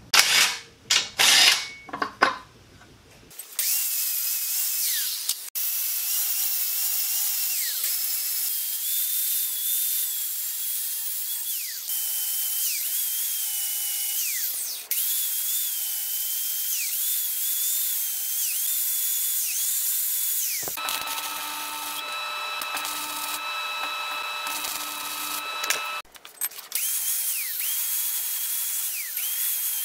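A few sharp knocks and clatters in the first seconds, then a handheld angle grinder working a steel pipe. Its high whine dips in pitch each time it bites into the metal and recovers as it comes off. For a few seconds past the middle a steadier whine runs over a pulsing lower hum.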